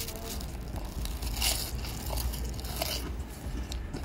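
Close-up crunching and chewing of a prawn cracker topped with food, with loud crunches about a second and a half in and again near three seconds.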